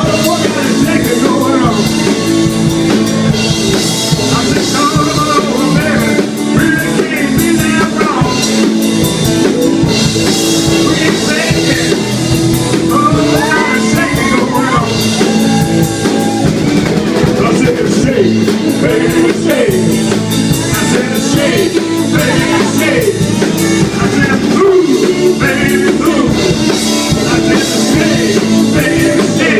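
Live rock band playing, with drum kit, guitar and a lead singer, at a steady loud level.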